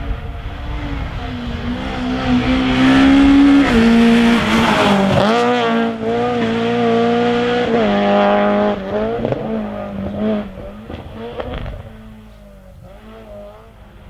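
Peugeot 106 rally car engine revving hard, its pitch rising as it approaches. The note drops sharply about five seconds in as the car slows and changes down for a tight bend. It then accelerates away, changes gear near eight seconds and fades into the distance.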